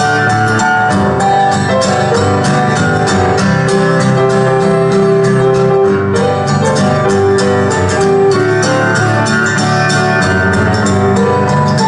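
Acoustic guitar strummed in a steady rhythm with piano accompaniment, playing a folk-country song without singing.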